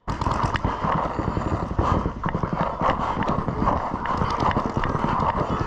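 Paintball markers firing rapidly: a dense, continuous stream of quick pops, with a few sharper cracks here and there.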